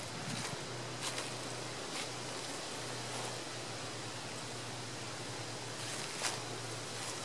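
Footsteps through dry fallen leaves: a few soft rustles over a steady hiss.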